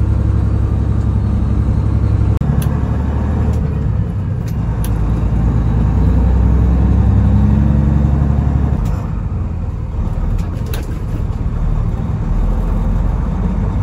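Peterbilt 389 glider's diesel engine running as the truck drives, its low note stepping and rising a few times, with a few sharp clicks.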